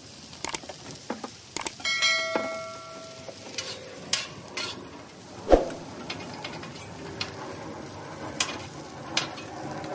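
Metal spatulas scraping and clacking on a Blackstone steel griddle top as vegetables are turned, over a sizzle. A ringing metallic clang comes about two seconds in, and a sharp knock about five and a half seconds in.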